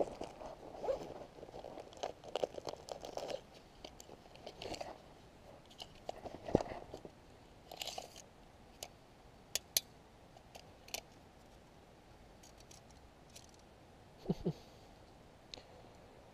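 Close handling noises as a caught crappie is held and measured against a retractable tape measure: irregular rustling and crunching, with several sharp clicks around the middle.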